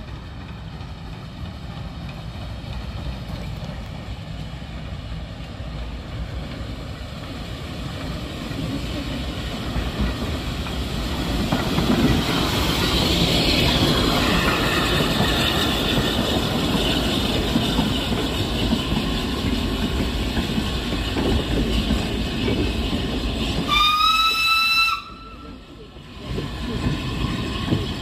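Narrow-gauge steam locomotive and its goods wagons approaching and passing close by, the exhaust, hiss and rolling of the train growing louder until it is alongside. Near the end a short steam whistle blast, rising slightly in pitch, stops abruptly, then the wagons roll on past.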